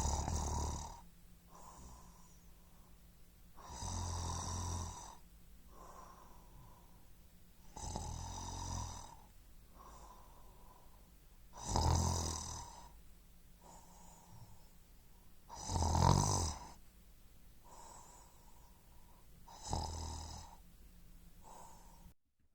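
A person snoring, with a loud snore about every four seconds and quieter breaths between them. The sound cuts off abruptly near the end.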